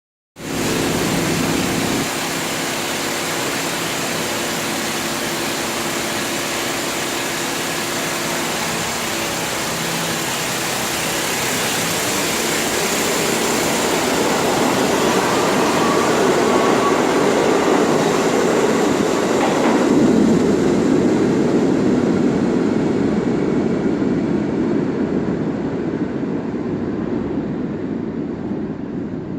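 R68 subway train pulling out of the station and running past, with a steady droning hum in the first several seconds; the uploader takes this weird noise for a faulty air compressor. The running noise builds to its loudest about twenty seconds in, then fades as the train moves off.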